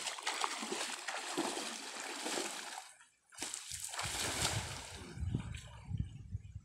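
Pond water splashing and sloshing around a man wading thigh-deep as he throws a cast net. It breaks off briefly about three seconds in, then comes back heavier as the net lands on the water and he wades on.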